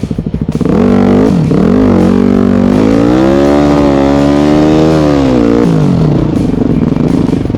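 Dirt bike engine chugging at low revs, then revving up about a second in and held high with the pitch swelling gently, before dropping back down near the six-second mark.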